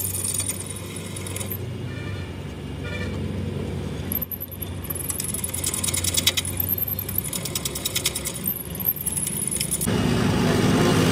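Drill press boring into the end of a steel axle shaft: the motor hums steadily under a fine, rapid metallic chatter of the bit cutting and chips curling off, which breaks off briefly a couple of times. Near the end the chatter stops and a louder, lower machine hum takes over.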